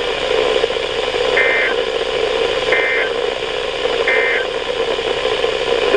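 Emergency Alert System end-of-message data bursts: three short, identical bursts of rapid two-tone digital code about 1.3 seconds apart, marking the close of the alert, over steady radio hiss.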